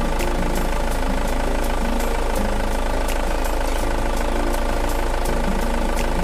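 A vehicle engine running steadily at idle, with an even ticking clatter several times a second.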